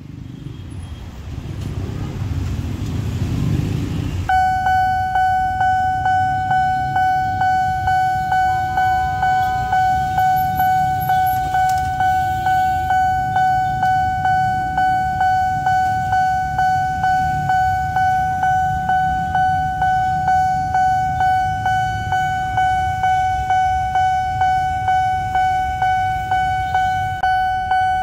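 Road traffic runs for about four seconds, then a railway level-crossing warning bell starts suddenly and rings steadily at about two strokes a second. The bell is the warning that the barriers are closing for an approaching train.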